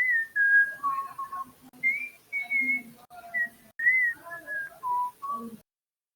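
Whistling: a run of short, clear notes that slide up and down like a tune, stopping shortly before the end.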